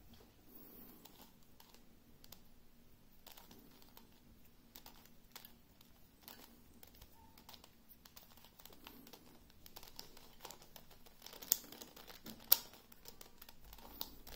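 Plastic 2x2 Megaminx (Kilominx) puzzle being turned by hand through a sequence of moves, its faces clicking faintly and irregularly, with two sharper clicks near the end.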